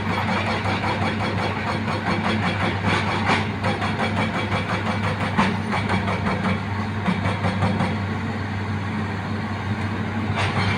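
Hitachi Zaxis 200 excavator running steadily with a fast, even rhythmic knocking from its hydraulic rock breaker, with a few louder knocks.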